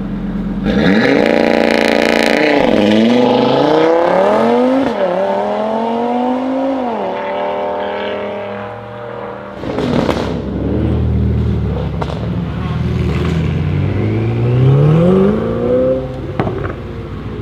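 Mercedes-AMG G63's twin-turbo V8 through an Akrapovic exhaust, accelerating hard from idle: its pitch climbs and drops back with upshifts about every two seconds. Later it revs up again, with a few sharp crackles near the end.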